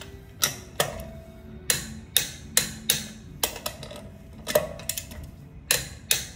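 About a dozen sharp metal clinks at irregular intervals, some ringing briefly, as a lug wrench works the lug nuts while a road wheel is bolted back onto the hub.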